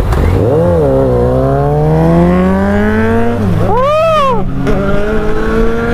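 Motorcycle engine accelerating hard, its pitch climbing steadily, then dropping sharply at a gear change about three and a half seconds in. A quick rev rises and falls, and the pitch climbs again through the next gear.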